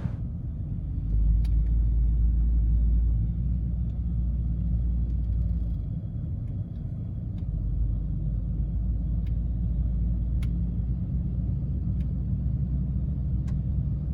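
Low, steady road rumble of a vehicle driving, heard from inside, with a few faint ticks.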